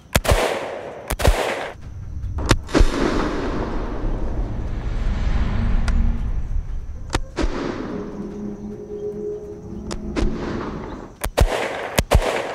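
Iranian-made Heckler & Koch G3 battle rifle in 7.62 NATO firing a string of loud single shots and close pairs, unevenly spaced, with a long low rumble trailing after the shots in the middle of the string.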